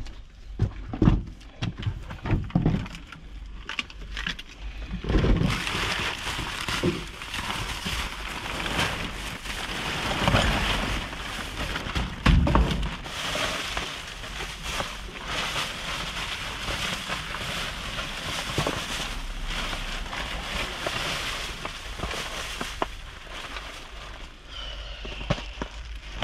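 Clear plastic bags and packaging crinkling and rustling as trash is rummaged through, turning into steady crinkling about five seconds in. There are a few dull thumps early on and once near the middle.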